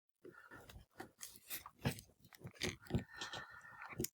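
Plastic wing of a Lightning Collection King Sphinx action figure being worked into the figure: a run of faint, irregular small clicks and scrapes of hard plastic against plastic.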